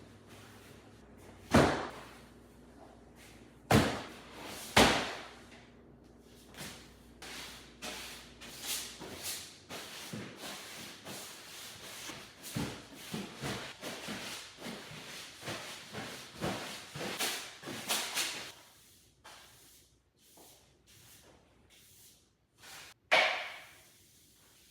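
A few sharp knocks and thuds, then a long stretch of quick rustling and clicking, and one more sharp knock near the end: things being handled and set down around a room.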